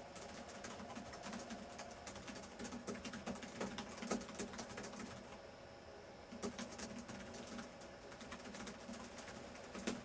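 Fast touch typing on a laptop keyboard: a dense, rapid stream of key clicks at about 120 words per minute, thinning briefly about halfway through.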